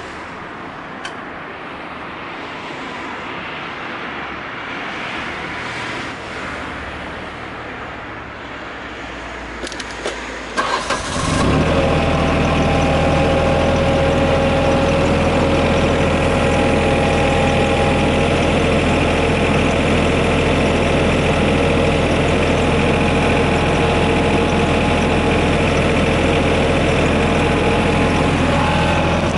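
Yanmar VIO20-1 mini excavator's diesel engine starting about eleven seconds in, then idling steadily. Before it catches there is a low steady hiss with a few clicks.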